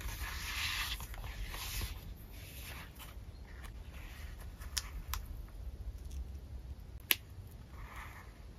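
Handling of a leather traveler's notebook: the cover and elastic band rustle as it is opened, then paper pages rustle as they are flipped through. A few sharp clicks about five seconds in and one loud snap about seven seconds in.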